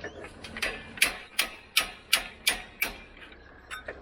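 Boat trailer winch ratchet clicking as the winch turns: six sharp metallic clicks, about three a second.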